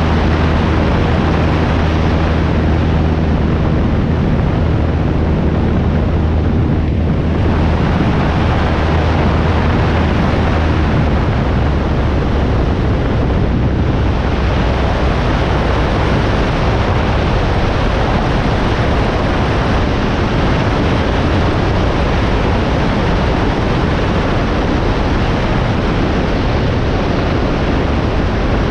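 Piper Pacer's engine and propeller droning steadily in cruising flight, heard through heavy wind rush over a microphone mounted outside on the wing.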